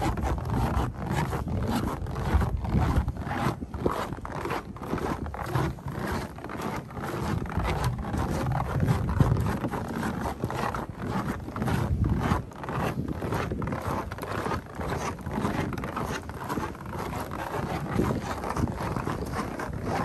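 Footsteps crunching in fresh snow on a wooden boardwalk at a steady walking pace, with a steady low rumble underneath.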